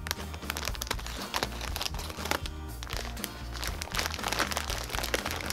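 Clear plastic bag of kinetic sand crinkling and crackling as hands handle and tip it, over background music.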